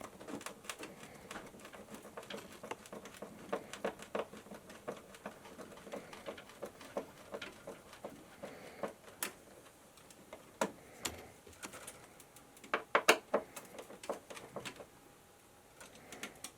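Scattered light clicks and taps of hand work fixing an electrical junction box to the wall, with a short run of louder knocks about 13 seconds in.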